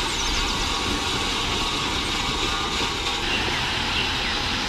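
Steady rumble and hiss of a heavy dump truck and loading machinery running while gravel is loaded into the truck's bed.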